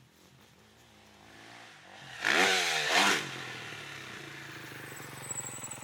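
Subaru Forester e-Boxer hybrid's engine, rising from quiet into two quick revs, then settling into steady running.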